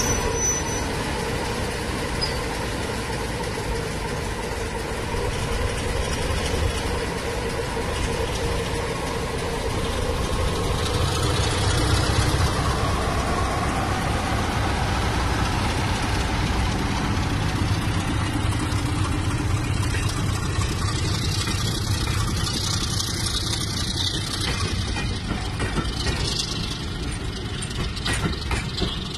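British Rail Class 33 diesel locomotive's eight-cylinder Sulzer engine running with a steady drone as the locomotive hauls its coaches slowly past, the low rumble heaviest about halfway through.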